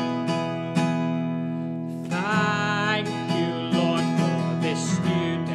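Acoustic guitar strummed in a steady rhythm; about two seconds in, a man starts singing along to it.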